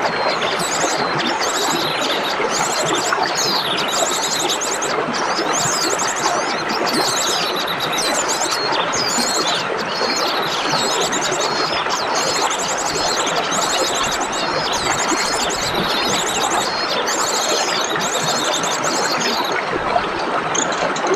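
Songbirds singing in repeated bursts of fast high trills and quick sweeping chirps over a steady rush of running water.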